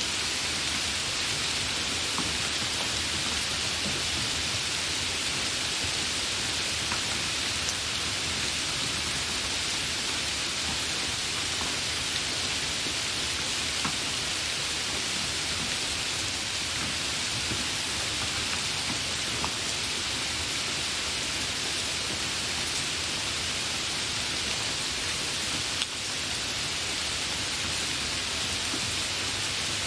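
Hard rain falling steadily as an even hiss, with a few sharper drop hits here and there.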